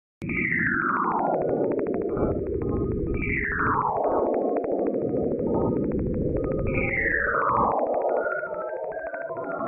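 Spacecraft radio or plasma-wave recording converted to sound: a crackling hiss with three falling whistles, each sliding down in pitch over about a second and repeating about every three seconds.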